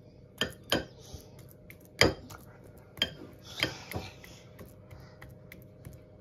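Metal fork clinking against a glass mixing bowl while stirring a thick banana and oat mixture, about six sharp knocks in the first four seconds, the loudest about two seconds in.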